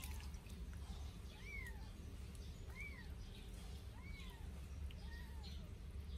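An 8-day-old sphynx kitten mewing four times, short high-pitched mews that each rise and fall, about one a second, the last one fainter.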